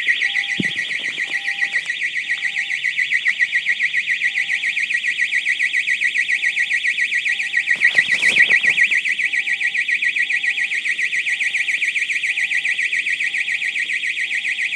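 Security alarm of a self-storage building sounding continuously: a loud, rapidly pulsing high-pitched tone, with a fainter beep about twice a second beneath it. A short rustling burst cuts across it about eight seconds in.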